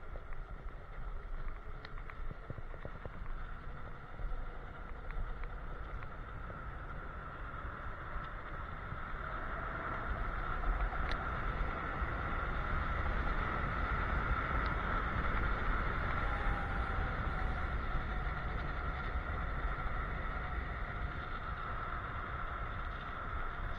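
Electric scooter ridden fast downhill: wind rushing over the microphone and tyre noise, with a steady high whine from the hub motors. It all grows louder about ten seconds in as the speed picks up.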